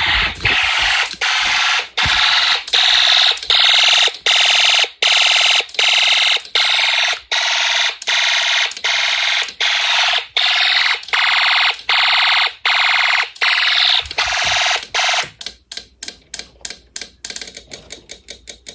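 Fire alarm horn sounding in a pulsed pattern, about two blasts a second. About fifteen seconds in, the pulses speed up to four or five a second and turn thinner.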